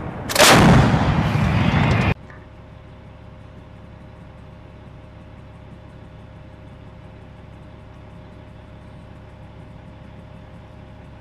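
M777 towed 155 mm howitzer firing: a sudden, very loud blast with a heavy low rumble that cuts off abruptly about two seconds in. A steady low hum with a faint steady tone follows.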